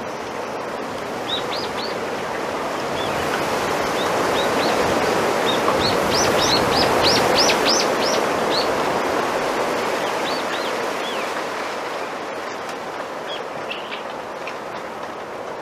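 Wind rustling the leaves of a bamboo grove, swelling into a gust midway and easing off again. Small birds chirp over it, with a quick run of chirps as the gust peaks.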